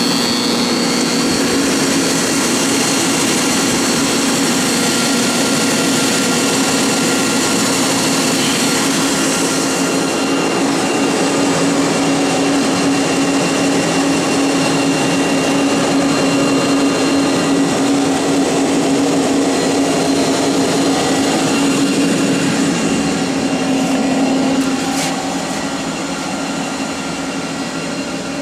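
Hardinge GT27 CNC lathe running: a loud, steady mechanical hum with a strong low tone and fainter high whines. About 25 seconds in there is a click and the running sound gets quieter.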